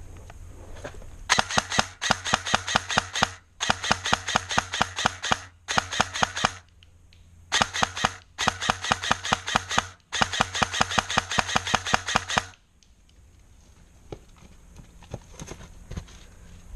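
Airsoft gun firing on full auto in six rapid bursts of evenly spaced shots, with a short pause about seven seconds in. The firing stops a few seconds before the end.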